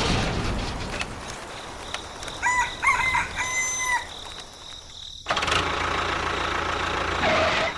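Rooster crowing: a few short notes and then one held note. A steady hiss-like noise comes in suddenly about five seconds in.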